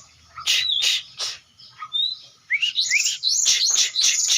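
Oriental magpie-robin (kacer) singing: a rapid, varied string of sharp chirps and harsh notes mixed with short clear whistles, with a couple of quick rising whistles about halfway through.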